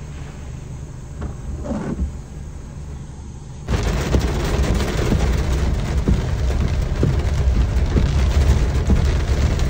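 Vehicle cabin noise: engine and tyre rumble, with frequent small knocks from the rough dirt road. It gets much louder about four seconds in, once the vehicle is driving along the track.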